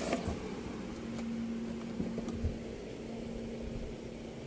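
A steady low hum with a single held tone that sets in about a second in, and a few soft clicks and knocks.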